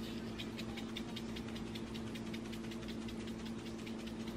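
Seasoning shaker jar shaken repeatedly over food, giving quick light ticks at about four a second because the seasoning is coming out slowly. A steady low hum runs underneath.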